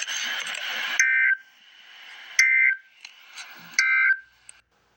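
A hiss of static for about the first second, then three short, loud bursts of Emergency Alert System end-of-message data tones about 1.4 seconds apart. Each is a harsh, buzzing two-tone digital squawk, and the three together mark the end of the alert.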